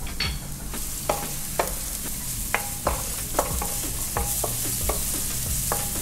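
Julienned ginger sizzling in hot corn oil in a nonstick wok, with a wooden spatula stirring it and knocking against the pan. The sizzle grows louder about a second in, and the spatula knocks come at an uneven pace of one every half second or so.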